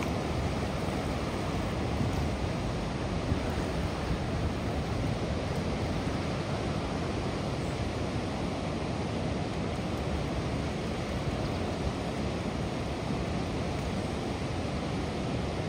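Floodwater pouring over a dam spillway and churning below it: a steady, even rush of turbulent water.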